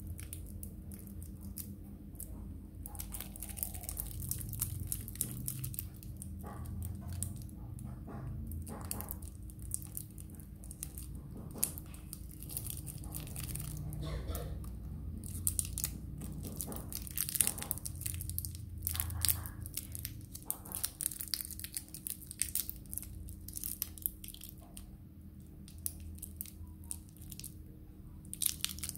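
Crinkly cellophane candy wrapper being twisted and pulled open by fingers around a hard candy, giving irregular clusters of sharp crackles over a steady low hum.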